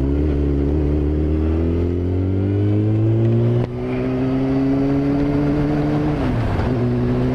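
Yamaha YZF-R6 sportbike's inline-four engine pulling under throttle, its pitch climbing. There is a sudden break about three and a half seconds in and another dip just past six seconds, as at upshifts; after each the engine pulls on.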